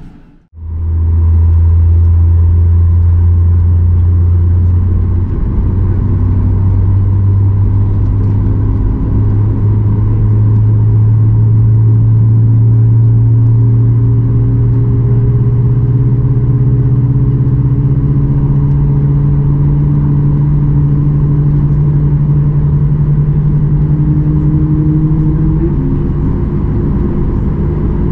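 Cabin sound of a Boeing 737 MAX 8 beside its CFM LEAP-1B engine on the takeoff roll: loud, steady jet engine noise and rumble, with a low hum that rises slowly in pitch as the airliner accelerates, stepping up near the end.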